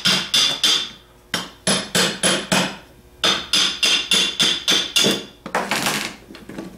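Hammer tapping the front housing of a GM DR44G alternator to separate the front plate and its bearing from the rotor shaft: quick light blows, about three a second, in three runs with short pauses between, then a longer rasping sound near the end.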